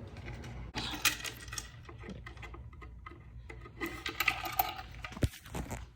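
Parts of an 18-shot fireworks mortar rack being handled and fitted together: scattered small clicks and rattles of hard pieces, with a single low thump about five seconds in.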